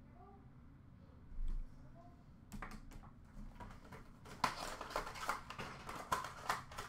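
Hands handling trading cards and their packaging: a soft thump about a second and a half in, then a run of small clicks and rustles that grows busier toward the end.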